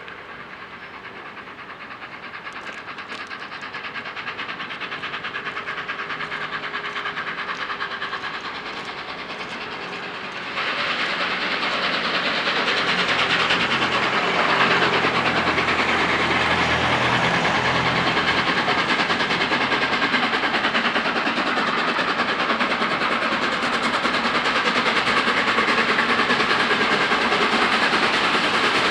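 Steam locomotive and its train approaching on the main line, the rail and engine noise growing steadily louder, with a sudden step up about ten seconds in.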